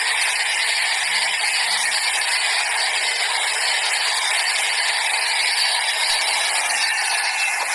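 Steady rushing noise of a ride in a moving open-sided vehicle, wind and road noise with no break or change.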